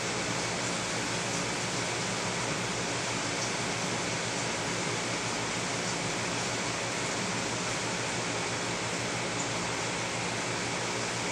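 Steady hiss of aquarium water flow and pump, with a faint low hum and no distinct events.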